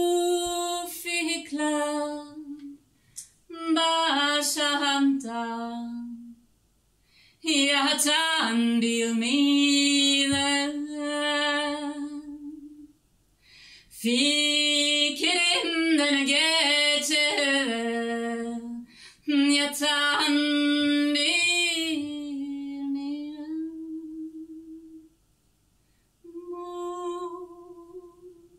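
A woman singing unaccompanied, in about six phrases of long held and gliding notes with short pauses between them.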